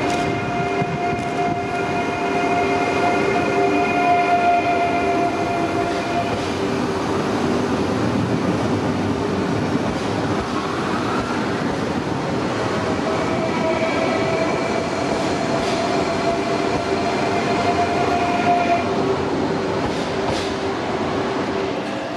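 TER2N NG (Z 24500) double-deck electric multiple unit running, its traction motors giving a steady whine of several tones over the rumble of the train. The higher whine stops about six seconds in, a short rising whine comes near the middle, and the steady whine returns for several seconds after that.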